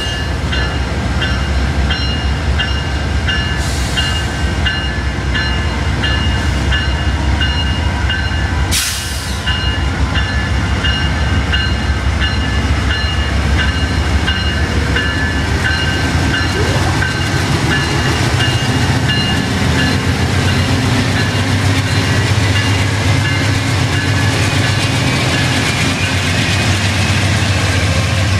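Amtrak GE P42DC diesel locomotives throttling up as the train pulls away, the engine note growing louder and heavier from about halfway through. A bell dings in a steady rhythm over the first two-thirds, then stops.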